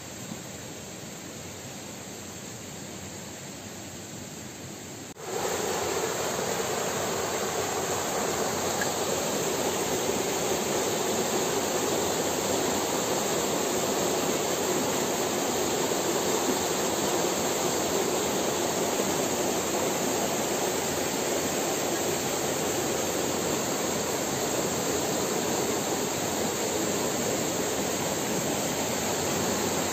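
Steady rushing of running water that jumps suddenly louder about five seconds in, then holds even.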